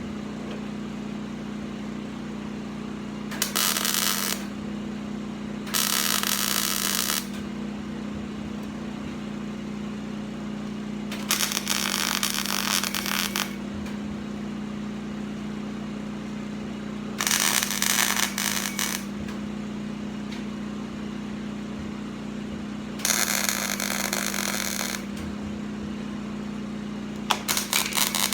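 Welder tack-welding a thin 18-gauge steel panel back onto a safe: six separate welds of about one to two seconds each, spaced several seconds apart, over a steady low hum.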